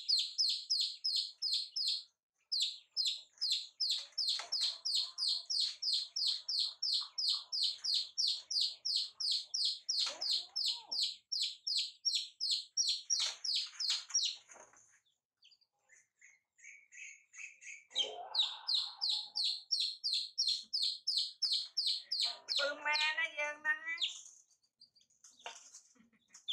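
Young chicks peeping steadily in a fast run of high calls, several a second, that stops for a couple of seconds around the middle and then starts again. Near the end a brief wavering cry sounds over them.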